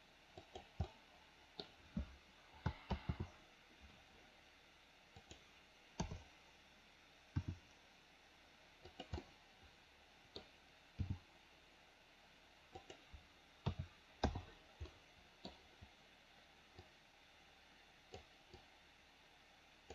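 Computer mouse buttons and keyboard keys clicking at irregular intervals, some in quick pairs and short runs.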